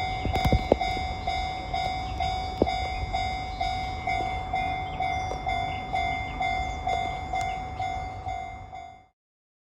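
Railway level-crossing alarm ringing, a repeated electronic bell tone pulsing about twice a second, with a few sharp knocks in the first seconds; it cuts off abruptly about nine seconds in.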